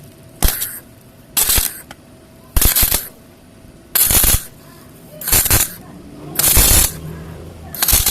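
Electric arc welder striking a run of short welds on steel: seven crackling, hissing bursts, each about half a second, roughly one every second and a bit.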